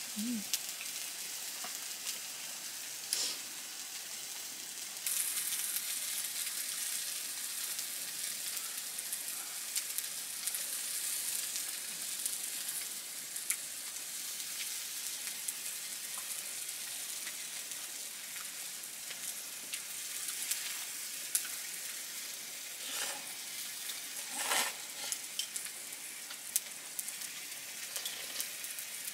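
Food sizzling in a frying pan, a steady crackling hiss that gets louder about five seconds in, with a few brief knocks and clicks.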